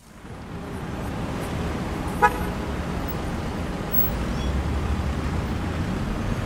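City street traffic noise, a steady low rumble of cars, with one short car-horn toot about two seconds in.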